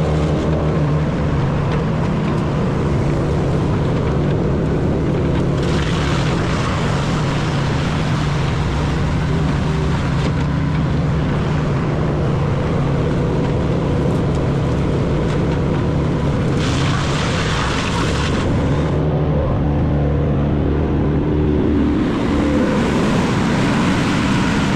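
Large wood chipper running with a steady engine drone. Two stretches of heavier grinding noise, about six seconds in and again near seventeen seconds, come as wood is fed through.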